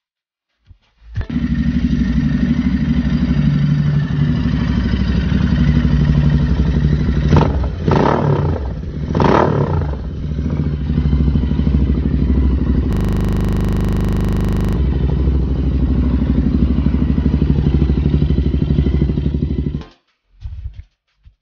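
Royal Enfield Interceptor 650's parallel-twin engine running loud through an aftermarket exhaust, starting about a second in and stopping about a second before the end. It is blipped a few times, with quick rises and falls in revs, about seven to ten seconds in. A short stretch of flat, even buzz in the middle sounds like a glitch in the recording.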